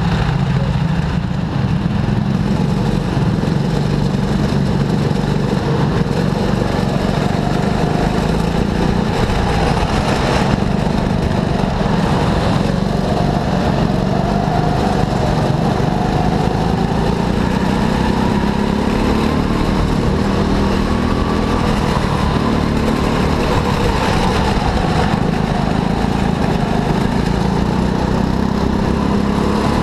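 Go-kart engine running loud and steady, its pitch slowly rising and falling as the kart speeds up and slows.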